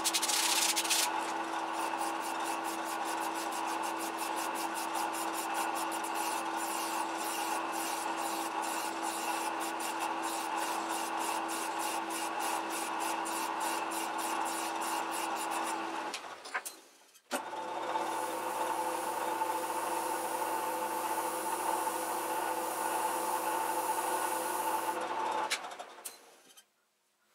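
A fine file stroked against a metal pulley spinning in a lathe, taking the turned cusps off the crowned surface, in quick, even strokes over the steady hum of the lathe. After a short break about 16 s in, the lathe runs on steadily without the file, then stops near the end.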